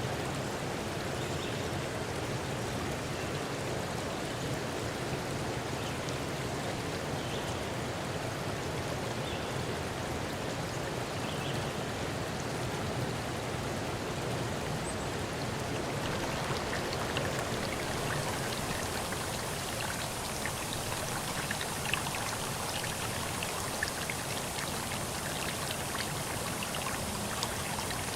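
Steady rush of running water. From about halfway through it takes on a brighter hiss with scattered drip-like ticks.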